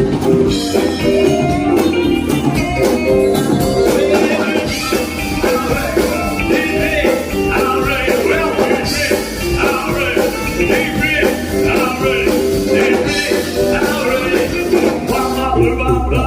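Music with singing and a steady beat, rock-style with guitar.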